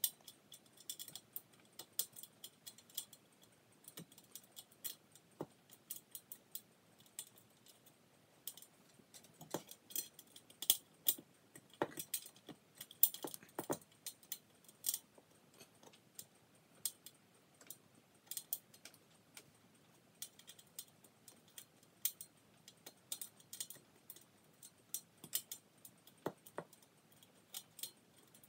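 Small metallic clicks and rattles, irregular and a few a second, from a hugger ceiling fan's motor housing being handled at the ceiling; they come thickest about ten to fourteen seconds in.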